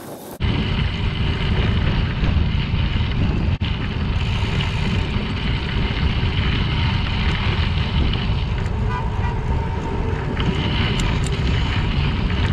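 Wind buffeting a bike-mounted camera microphone over the rolling noise of bicycle tyres on a crushed-limestone trail. It is a loud, steady rumble that starts abruptly about half a second in.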